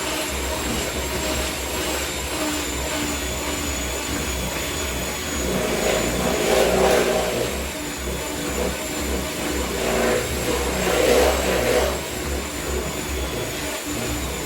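Electric mixer running steadily, whisking cake batter, with a high, even motor whine; the churning of the beaters in the bowl grows louder twice, around the middle and again later.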